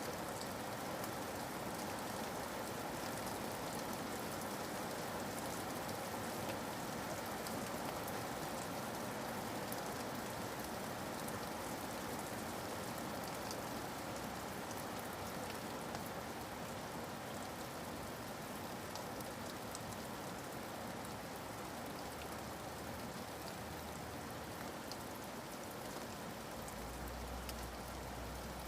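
Steady rain falling, a continuous even hiss with scattered drop ticks.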